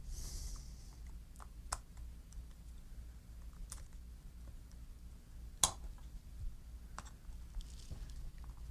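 Scattered light clicks and taps of plastic and metal parts as a chainsaw recoil starter pulley is seated in its plastic housing and worked at the hub with a screwdriver, with one sharper click a little past halfway. A brief soft rustle at the start.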